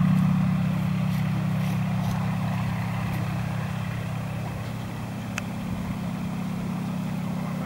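PZL-104 Wilga tow plane's engine at full take-off power with a glider on tow, a steady drone that fades over the first five seconds as the aircraft climbs away, then holds.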